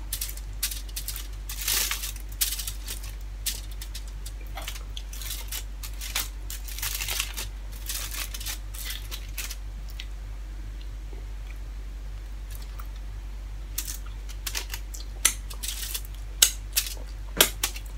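Fingers picking the last bits of crispy fried dried milkfish (daing na bangus) off aluminium foil, making a run of small crackles, clicks and foil crinkles. They are busiest in the first half, thin out in the middle, and a few sharper clicks come near the end.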